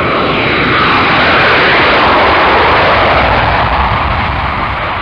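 Jet aircraft taking off: a loud engine roar that swells to a peak and falls slightly in pitch as it passes.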